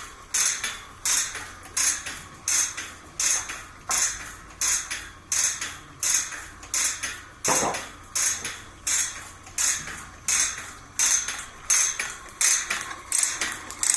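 Automatic bandsaw blade tooth-setting machine stepping along a sawmill band blade and bending the teeth, a sharp metallic clack about three times every two seconds in an even rhythm, with one deeper knock about halfway.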